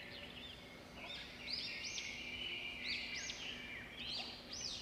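Birds chirping: short, high arched chirps that come in small clusters about once a second, over a steady high-pitched background chorus.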